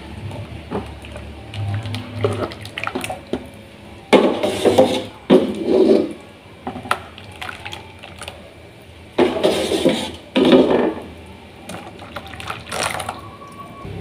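Liquid agar-agar pudding mixture poured from a plastic jug into a plastic ring mould, in spells with short pauses, loudest about four and nine seconds in.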